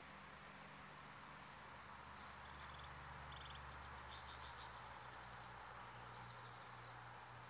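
Faint high chirping of insects in short rapid pulse trains, heard between about one and a half and five and a half seconds in, over a faint steady low hum.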